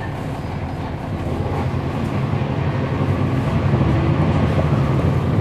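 Inside a 2011 NABI 40-SFW transit bus, its Cummins ISL9 diesel engine running under way with road noise, growing louder from about one second in to four seconds in.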